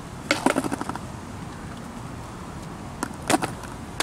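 Birdhouse Tony Hawk Mini skateboard clattering under a rider's feet: a quick run of clicks and knocks about a third of a second in, and another short cluster near three seconds.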